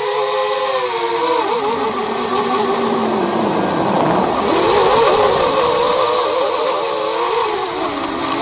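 Electric motors and propellers of an FPV model aircraft, heard through its onboard camera: a whine whose pitch wavers constantly with the throttle. It dips lower about four seconds in, then rises again.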